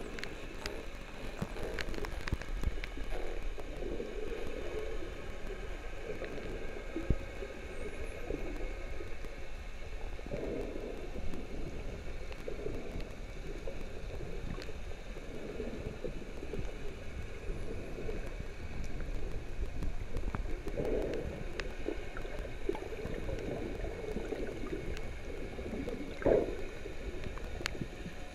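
Underwater sound picked up by a submerged camera: a steady gurgling water noise with scattered sharp clicks and a few faint, short high whistles from the dolphin pod. Two louder gurgling swells come late on.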